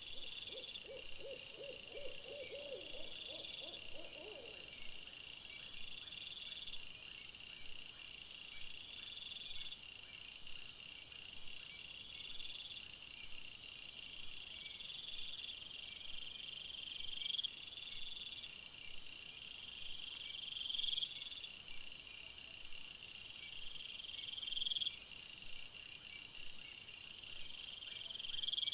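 An owl hooting: one quavering run of rapid low hoots lasting about four seconds near the start. Throughout, night insects chirp steadily at a high pitch in repeating phrases.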